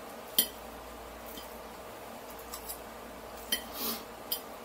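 A metal fork clinking against a plate a few times, with a short scrape near the end, over steady room tone.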